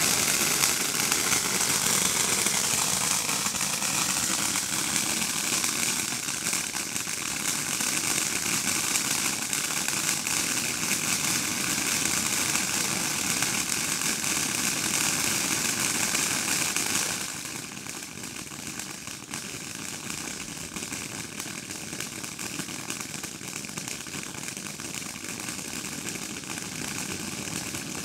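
Ground fountain firework spraying sparks with a steady, loud, rushing hiss. About 17 seconds in the hiss drops to a quieter level and keeps going.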